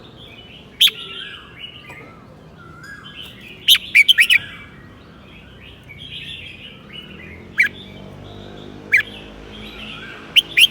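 Red-whiskered bulbul singing: a run of mellow warbled phrases, broken five times by loud, sharp chirps, the longest a quick burst about four seconds in.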